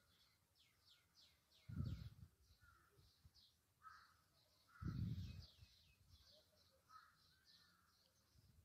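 Faint birds calling: many short, quick high chirps, with lower calls now and then. Two dull low thumps stand out, about two and five seconds in.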